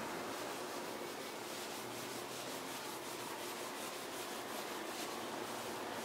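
A hand-held pad scrubbing a car's window glass coated in cleaning paste, rubbing in repeated strokes to lift water and acid-rain spots.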